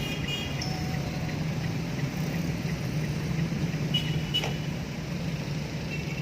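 A motor vehicle's engine running with a steady low hum over road noise. A faint, even ticking runs underneath, with a couple of short high tones near the start and about four seconds in.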